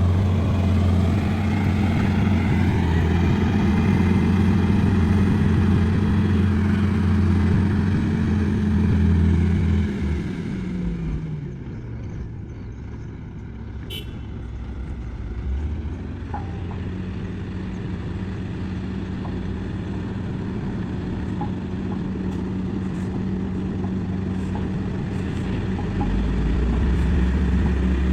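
Komatsu bulldozer's diesel engine working at high revs, then slowing about ten seconds in to run quieter, and picking up again near the end.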